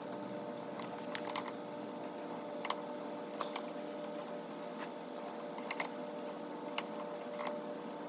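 Irregular light clicks and taps, about one or two a second, from cable cutters and a vinyl-coated stainless lifeline wire being handled, over a steady background hum.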